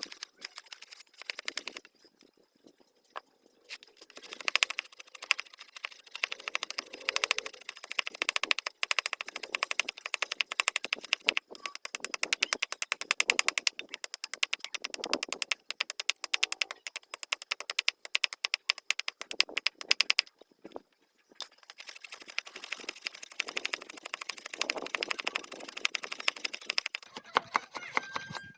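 Rapid, dense scraping on a bamboo hammer handle by a hand tool, shaping the wood, in long runs of quick scratchy strokes with brief pauses.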